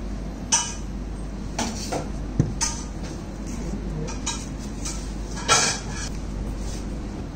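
Scattered clinks and clatters of steel kitchen utensils on a food-prep counter, the loudest about five and a half seconds in, over a steady low hum.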